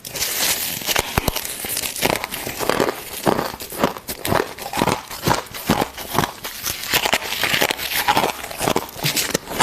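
Fluffy freezer frost and ice chips crunching: a dense run of crisp crackles with about two to three stronger crunches a second.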